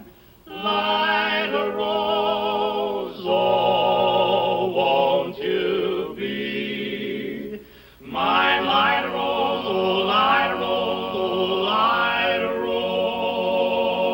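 Barbershop quartet singing in close harmony, holding long chords with vibrato. The singing breaks off briefly twice, at the very start and about eight seconds in.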